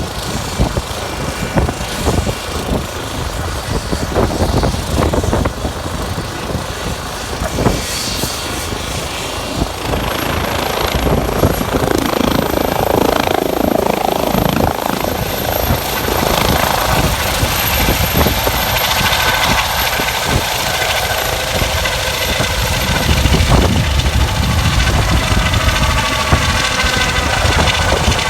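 Air ambulance helicopter's rotor and turbine engine running loud and steady, growing gradually louder, with a thin high turbine whine coming in about ten seconds in. Strong gusty wind buffets the microphone.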